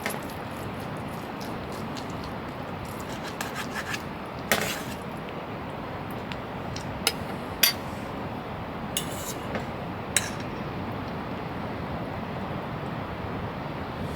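Scattered light clinks and knocks, like dishes and utensils being handled, over a steady background hiss.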